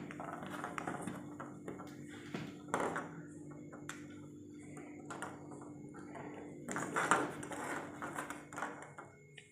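Christmas bauble ornaments tapping and clinking against each other and the board as they are picked up and set down in a row, with a louder cluster of handling sounds about seven seconds in, over a faint steady hum.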